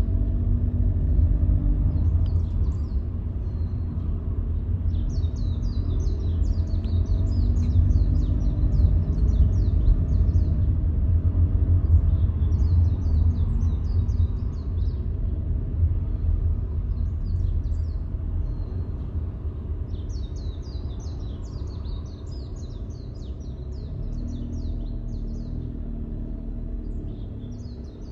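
Steady deep rumble of a car on the move, engine and road noise heard from the moving car, easing off in the second half. Over it, birds chirp in repeated clusters of quick high notes.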